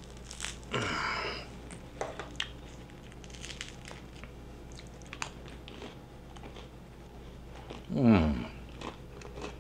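Crusty bread being pulled apart and chewed: small scattered crackles and crunches of the crust, with a short noisy rustle about a second in. About eight seconds in comes a brief hum falling in pitch, an appreciative "mmm".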